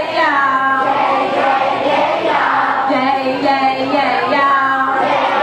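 A woman singing into a microphone over a PA, with a group of children's voices singing along.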